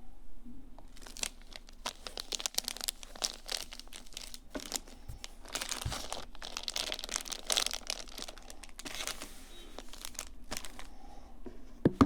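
Packaging being handled and opened: crinkling, rustling and crackling in quick irregular bursts, with a short thump near the end.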